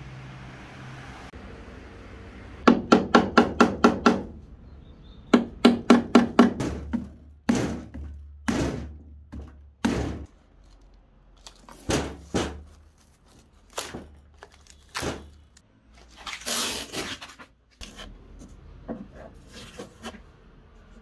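Hammer knocking on a wooden speaker cabinet to break its panels apart: two quick runs of about eight blows each, then single blows every second or two. About two-thirds of the way in comes a longer scraping noise of about a second.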